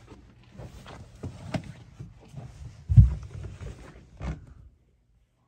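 Footsteps and rustling handling noise as a person moves through a narrow cabin doorway, with a heavy thump about three seconds in and another knock about a second later.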